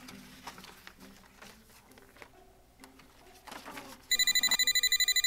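Office desk telephone starts ringing about four seconds in, a loud, rapidly warbling electronic ring. Before it come faint rustles and clicks of papers being handled on the desk.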